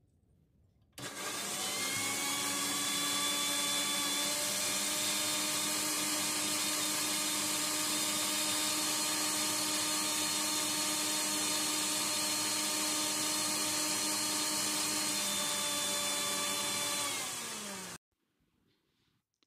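Electric mixer-grinder (mixie) blending a jar of milk, powdered oats and sugar, condensed milk and water: the motor spins up about a second in, runs with a steady high whine for about seventeen seconds, then sags slightly in pitch and cuts off abruptly near the end.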